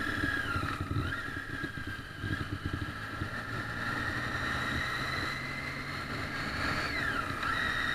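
Triumph Street Triple's inline three-cylinder engine running under way. Its note holds steady, then dips and climbs back twice, about a second in and again near the end.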